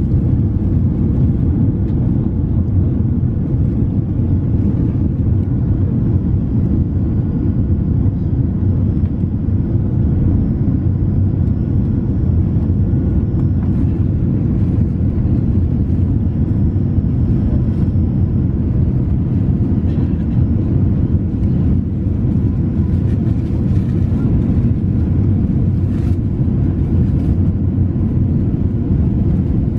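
Steady low rumble inside a jet airliner's cabin in flight: engine noise and airflow, with a few faint high steady whines over it.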